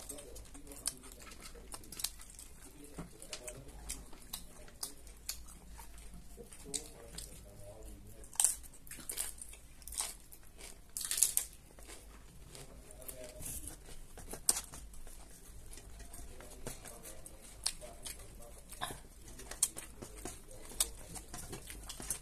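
Close-up crunching and chewing of mimi singju, a salad of crushed dry noodles and raw shredded cabbage, eaten by hand. Irregular crisp crunches, with a few louder ones near the middle.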